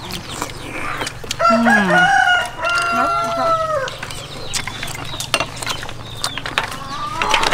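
A rooster crowing once: a long call starting just over a second in and lasting about two and a half seconds, held and then dropping away at the end. Small scattered clicks sound around it.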